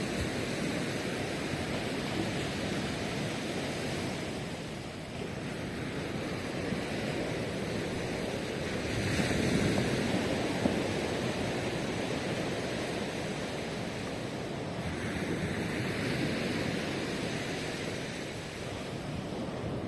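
Ocean surf washing onto the shore in a continuous rush, swelling as waves break about nine seconds in and again around sixteen seconds.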